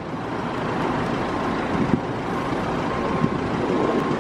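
Steady vehicle noise, a continuous rumble and hiss with a faint thin high whine held from about a second in.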